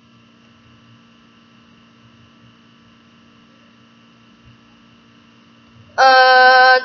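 Faint steady electrical hum with a few thin whining tones. Near the end a voice holds one drawn-out vowel on a single steady pitch for under a second, a thinking pause in mid-sum; this is the loudest sound.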